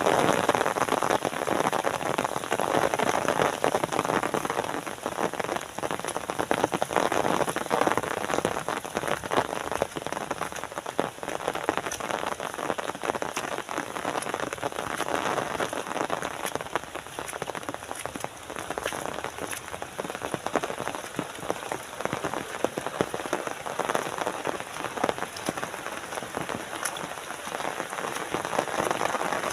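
Steady rain pattering densely on roofs and foliage, a continuous patter of many fine drop ticks with no breaks.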